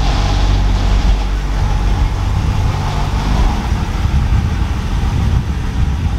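LS V8 engine of a VT Commodore idling with a steady low rumble.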